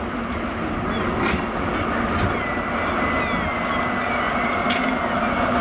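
Class 43 HST diesel power car running as the train draws slowly past on curved track, a steady engine tone under a steady rumble. A thin high squeal from the wheels on the curve comes and goes, with a couple of sharp clicks over the rails.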